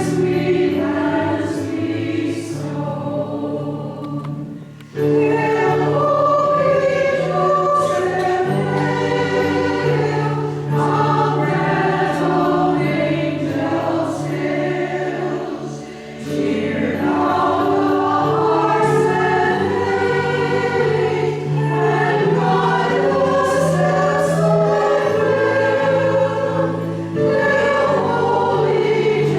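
A choir singing a hymn in sustained phrases, pausing briefly about five seconds in and again about sixteen seconds in.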